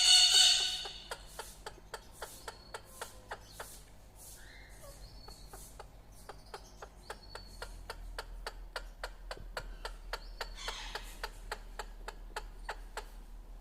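A caged bird gives one loud, harsh call right at the start, followed by a steady run of short sharp ticks, about four a second, with softer chirps among them.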